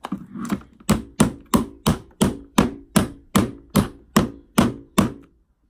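A jar of Maybelline Fit Me loose finishing powder knocked against a hard surface about fourteen times, roughly three sharp, hollow knocks a second, stopping shortly before the end: tapping the powder loose into the sifter before setting the face.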